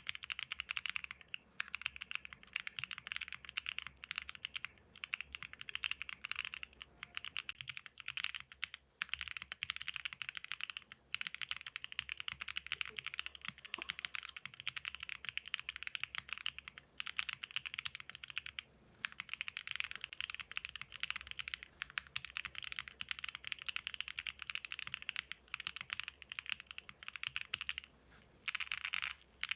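Continuous typing on a Choice65 gasket-mount mechanical keyboard with stock Rouge switches, a PC plate, Poron foam and EPBT PBT keycaps: a dense run of keystroke clacks broken by a few short pauses.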